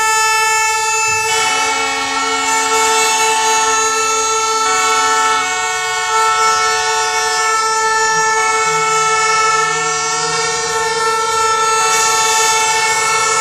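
Several plastic horns blown together in long, overlapping held notes at different pitches, some dropping out and coming back in.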